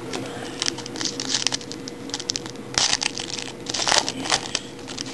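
Wrapper of a 2008-09 Upper Deck SP Game Used hockey card pack crinkling and tearing as it is opened by hand, in irregular crackles with two louder rips about three and four seconds in.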